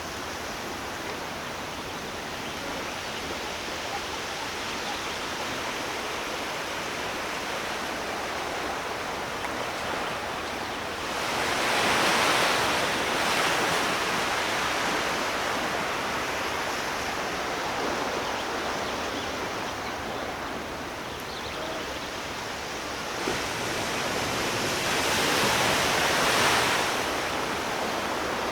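Ocean surf: a steady wash of water with two larger waves swelling up and breaking, one about 11 seconds in and one near the end.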